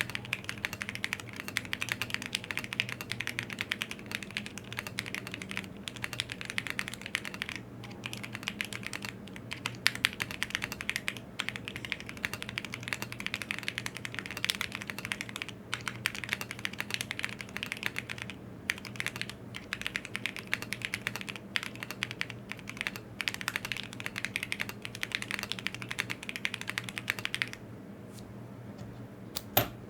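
Fast, continuous typing on a plateless Thera75 custom mechanical keyboard with Thic Thock Marshmallow switches and IFK keycaps: a dense stream of keystrokes. The typing stops a couple of seconds before the end, followed by a couple of louder single clacks.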